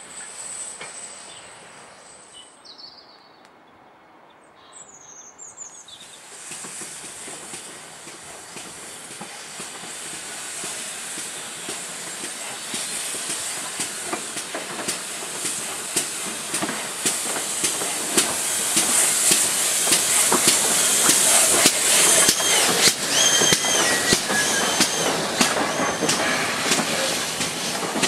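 Steam locomotive and its coaches drawing in along the platform. It builds from quiet to loud with a rising hiss of steam and wheels clicking over rail joints. Short high-pitched squeals from the wheels repeat near the end as the coaches pass.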